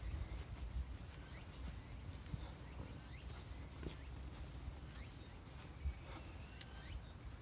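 Faint outdoor ambience: a steady high-pitched insect drone, with a low rumble on the microphone and a few soft footstep knocks as the camera-holder walks.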